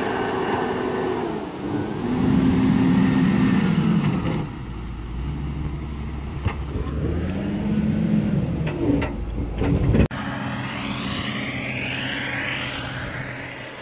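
Diesel engine of a Case wheel loader working hard as it pushes earth with its bucket, its pitch rising and falling twice under load. A few sharp knocks come near the end of the push, then the engine runs steadier and quieter.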